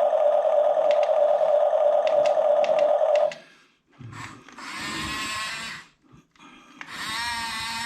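Small electric drive motor and gearbox of a 1569 RC toy bulldozer running with a steady high whine and a few light clicks, cutting off suddenly about three seconds in. Two shorter, softer stretches of sound with a wavering pitch follow.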